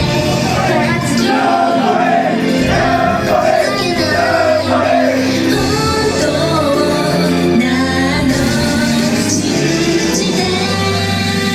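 Upbeat J-pop idol song performed live over a hall PA, with female voices singing the melody over a loud backing track.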